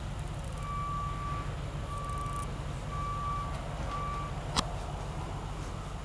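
Vehicle reversing alarm beeping four times, about once a second, over a steady low rumble, followed by a single sharp click.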